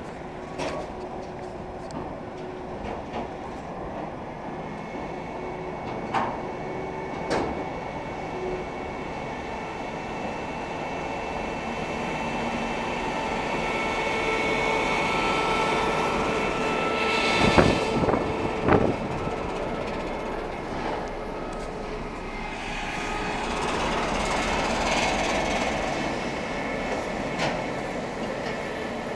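Freight train rolling beneath, its wheels clicking over rail joints, with the rumble of a ChME3 diesel shunting locomotive as it passes. It grows louder about halfway through, with two sharp clacks, and swells again near the end.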